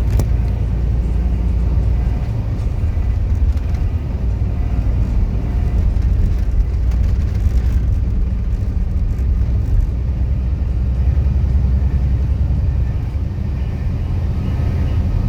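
Train passing: a loud, steady low rumble.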